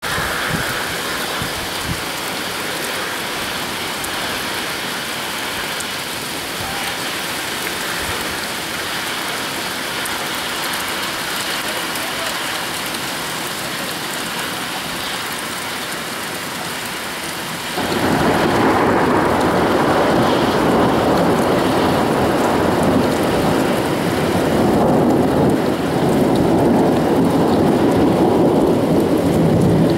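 Steady rain falling during a winter thunderstorm. A little past halfway, a long roll of thunder sets in abruptly and rumbles on, louder than the rain, swelling again near the end.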